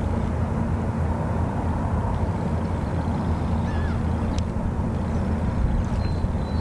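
Outboard motor of a boat running at a steady speed, a constant low drone.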